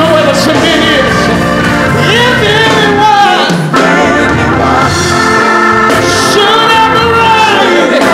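Live gospel music: a man singing into a microphone in phrases that rise and fall in pitch, over steady sustained chords from the band.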